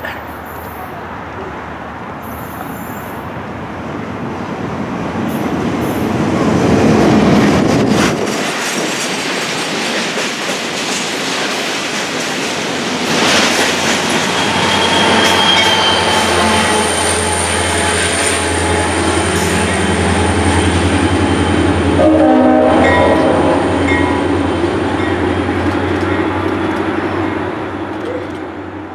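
Freight train with an EMD GP40-2 diesel locomotive passing close by: the locomotive's engine drones under the rumble of wheels rolling and clicking over the rails. A thin, high wheel squeal runs through the second half, and there is a quick run of clicks about two-thirds of the way through before the sound fades.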